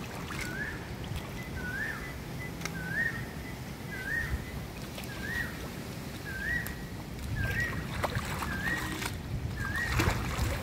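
A bird repeating a short, rising call about once a second, over a steady low rumble of wind on the microphone.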